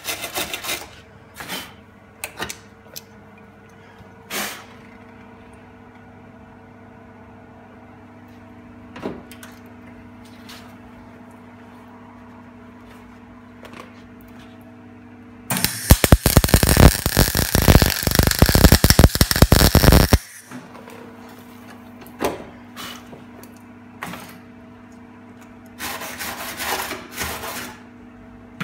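Esab MIG welder tack-welding a replacement car quarter panel: short crackling welds at the start, a loud crackling run of about five seconds after the middle, and another burst of about two seconds near the end. A steady hum fills the pauses.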